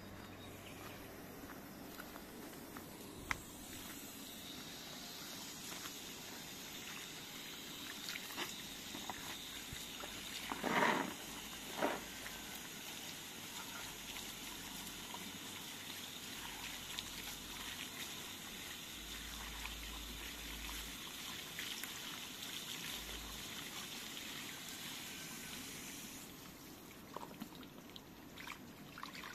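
Water running from a garden hose into a plastic basin of cut wild artichoke pieces, a steady trickle and pour as they are rinsed by hand. Two brief louder sounds come about eleven and twelve seconds in.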